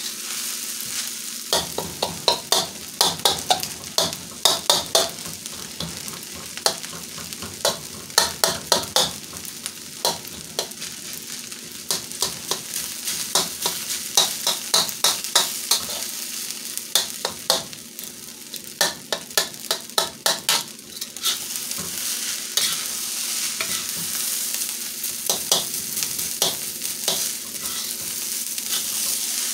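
Rice sizzling as it is stir-fried in a steel wok, with a metal spatula scraping and clacking against the wok in quick runs of strokes. The strokes come thick from about two seconds in until about twenty seconds in, then turn sparse, leaving mostly the steady sizzle.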